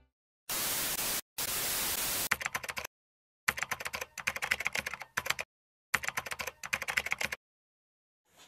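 Two short bursts of static hiss, then rapid computer-keyboard typing clicks in three runs with pauses between: a typing sound effect laid under on-screen text.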